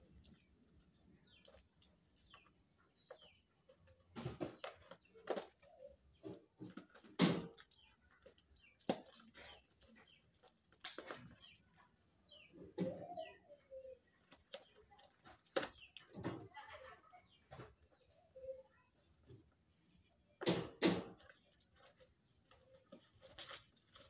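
A small taped cardboard parcel being handled and cut open with scissors: scattered rustles, scrapes and sharp clicks, the loudest about a third of the way in and twice in quick succession near the end. A steady high insect drone runs underneath.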